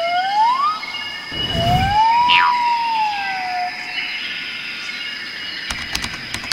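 Background music with a gliding tone that rises for about a second, then swoops up again and slowly sinks. A brief low rumble comes about one and a half seconds in, and a few clicks near the end.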